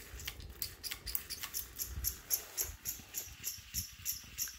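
Canarm Twister ceiling fan coasting down after being switched off, with a rhythmic high-pitched squeak about three to four times a second. The squeak is the rotor rubbing on the housing because the fan is standing on the floor, not bearing noise.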